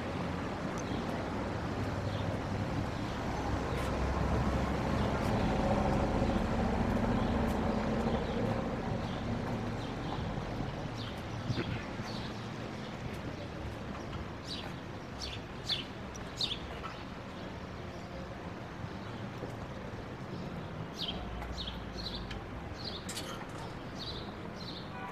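Street ambience: a motor vehicle passes with a steady engine hum during the first several seconds. Then, over the low traffic rumble, birds chirp repeatedly in short, high, falling notes, more and more often toward the end.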